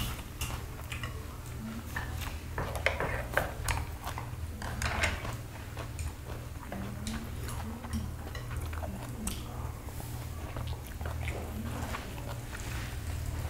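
Close-up eating sounds: chewing, with the light clicks of metal chopsticks against dishes and the grill grate, over a steady low hum.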